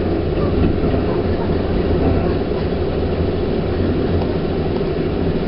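A train running past, a steady rumble of wheels on rails.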